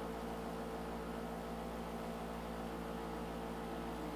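Steady electrical hum with a faint hiss, a constant background without any change.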